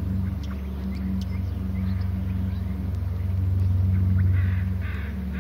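A steady low motor hum, with faint bird calls over it and a short run of calls near the end.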